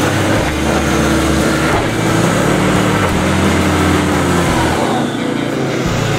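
Land Rover Discovery II Td5's five-cylinder turbodiesel engine working as the 4x4 drives through a muddy woodland track, its engine speed rising and falling.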